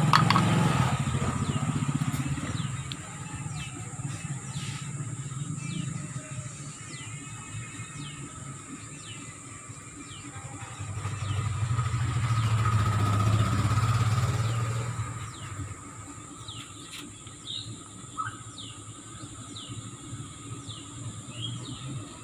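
Motor vehicles going past, their engine rumble swelling and fading twice: loud at the start and again midway. Birds chirp in short falling notes through the second half.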